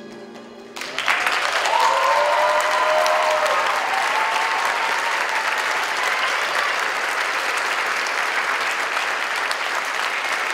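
Audience applauding, breaking out suddenly about a second in as the music ends and continuing steadily, with a few cheering voices in the first seconds.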